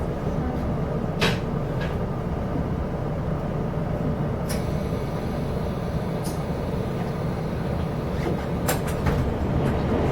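Inside a Chu-Kuang express passenger coach running along the line: a steady low rumble of wheels on rail. Several sharp clicks or knocks come through it, the loudest about a second in and near the end.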